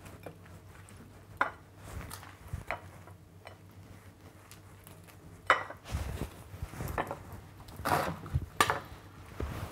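Little gem lettuce pieces being set down by hand on a plate, a handful of separate light taps and clatters against the plate and chopping board, the sharpest about five and a half seconds in.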